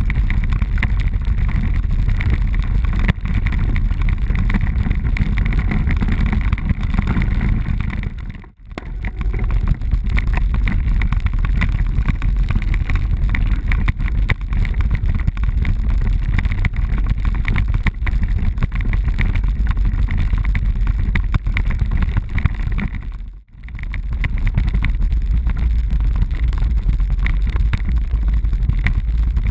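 Road bike ridden over cobblestones, heard through a camera mounted on the bike: a loud, continuous rattle and rumble from the jarring on the stones, with wind on the microphone. The sound drops out briefly twice, about eight seconds in and again about two-thirds of the way through.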